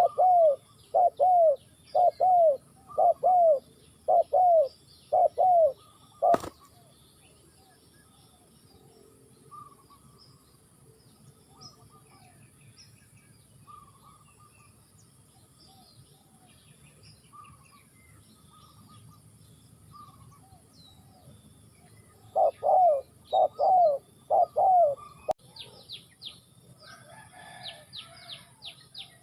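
Spotted dove cooing loudly in a run of evenly repeated notes for about six seconds, then again in a shorter run of about six notes some 22 seconds in. Smaller birds chirp faintly between the runs, more busily near the end, and a single sharp click comes about six seconds in.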